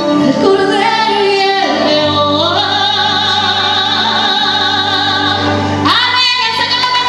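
A woman sings a Christian song into a microphone, holding long high notes with vibrato. Her voice steps upward early on, and about six seconds in it climbs to a new held note.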